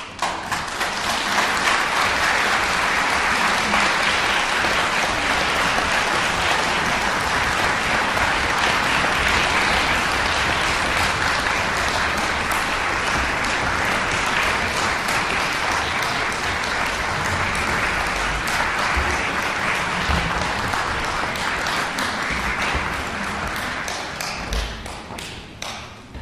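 Audience applauding, starting at once and holding steady, then dying away to a few scattered claps near the end.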